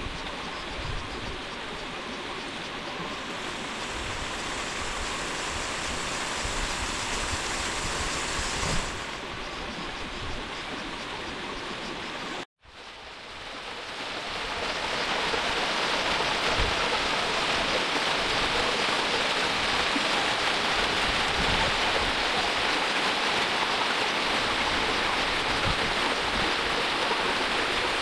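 Rushing river water, a steady hiss. It cuts out abruptly about halfway through, then comes back louder and fuller.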